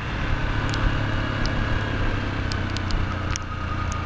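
Yamaha Lander 250's single-cylinder four-stroke engine running steadily at low revs on the move, heard from the rider's helmet, over a rush of wind and wet-road noise with a few light, sharp ticks.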